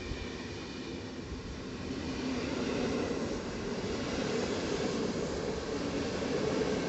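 A train running on the track, a steady rumble with a faint hum in it, growing a little louder about two seconds in.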